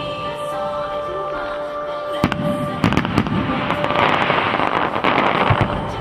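Fireworks display: a few sharp bangs about two seconds in, then a dense run of crackling and popping from the bursting shells. Music plays along underneath.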